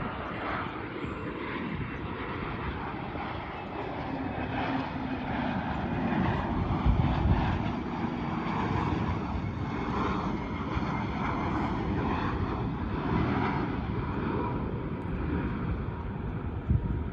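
Airliner engines running in a steady, continuous rumble with a faint steady whine above it. The sound swells a little about seven seconds in.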